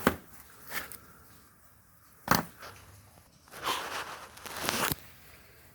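Sharp metallic clicks and knocks of a pulley, bolt and tools being handled, three of them in the first few seconds, then a rustling scrape lasting about a second and a half.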